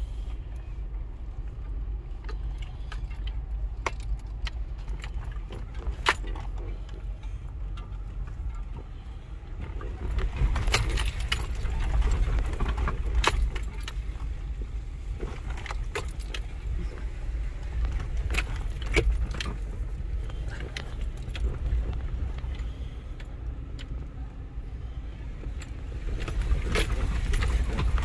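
Off-road vehicle jolting slowly over a rough dirt trail, heard from inside the cabin: a steady low rumble of engine and tyres with frequent clicking and rattling knocks. The rattles grow busier and louder from about ten seconds in.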